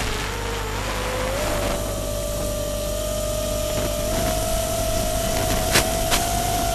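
FPV quadcopter's brushless motors whining in flight, the pitch stepping up about a second and a half in and then creeping slowly higher as the throttle changes. Two short, sharp clicks come near the end.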